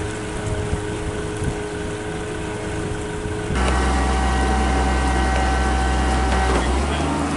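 A sailboat's engine running steadily while motoring across the water. After about three and a half seconds it gives way to a louder, deeper steady engine hum: the boatyard travel lift running as it holds the boat in its slings during the haul-out.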